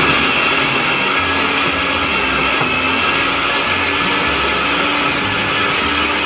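Countertop blender motor running steadily at speed, churning a thick purée of roasted pumpkin and vegetables with coconut oil in its glass jar.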